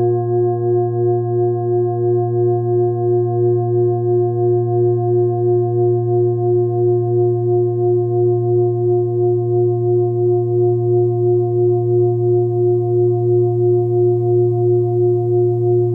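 A 28 cm hand-forged Sun Moon singing bowl, tuned to about 117 Hz (A#), sounds a sustained deep hum with several higher overtones, pulsing in loudness about two to three times a second. The tone holds its level throughout rather than dying away, as when a stick is kept circling the rim.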